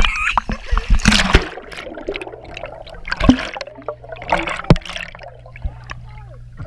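Water splashing as an action camera is dunked in a swimming pool, followed by muffled underwater sound: scattered bubbling and knocks over a steady low hum.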